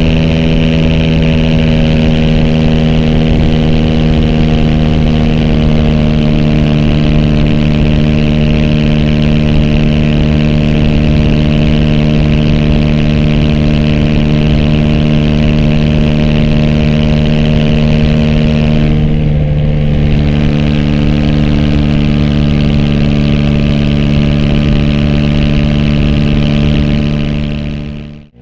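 Aprilia SX 125's single-cylinder four-stroke engine through an Arrow racing header and Arrow Thunder slip-on exhaust, running at a steady engine speed, its pitch easing down slightly over the first few seconds and then holding. Heard muffled from a phone in the rider's backpack; the sound dips out sharply at the very end.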